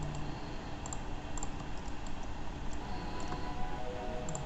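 Scattered clicks of a computer mouse and keyboard, over faint background music.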